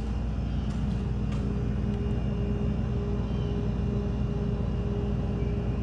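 Large freezer's compressor running with a steady hum, the freezer already starting to cool.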